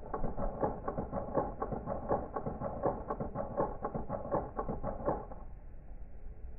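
A rapid series of clicks, about five a second, that stops about five seconds in.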